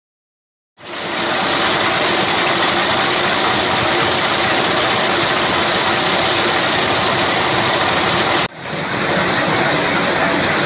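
AFT MH100 hydraulic trencher on an excavator cutting through reinforced concrete: the digging chain's teeth make a steady, loud noise over the running excavator engine. It starts abruptly about a second in and drops out briefly near the end before carrying on.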